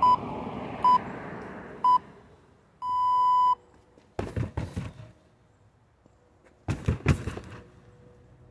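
A workout interval timer beeps three short beeps about a second apart, then one longer beep, the countdown signal for a change of round. Two quick flurries of kicks thud against a freestanding heavy bag, one just after the long beep and another a few seconds later.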